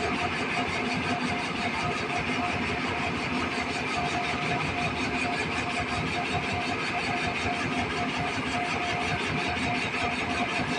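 Komatsu excavator's diesel engine running steadily, with a steady whine above the engine note.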